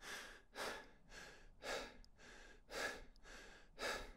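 A person breathing fast and in fear, short breaths about two a second, alternating stronger and weaker, faint.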